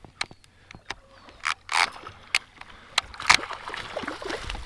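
Hooked perch thrashing at the water's surface as it is reeled in to the boat: a quick series of sharp splashes and clicks.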